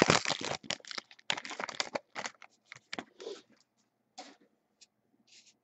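Foil wrapper of a football trading-card pack crinkling and tearing as it is opened by hand: dense crackling for about the first two seconds, then scattered fainter crackles that thin out as the cards are pulled free.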